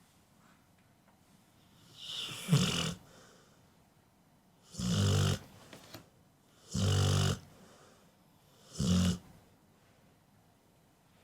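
Pit bull snoring in its sleep: four separate snores about two seconds apart, the first about two seconds in, each a low buzzing rasp.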